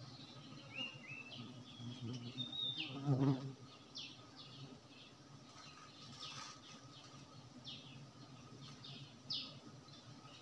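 Honey bees buzzing around the nest in a steady low hum, with one louder buzz as a bee passes close about three seconds in. Short high bird chirps repeat throughout.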